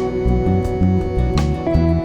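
Background music: plucked guitar over a steady bass line and beat.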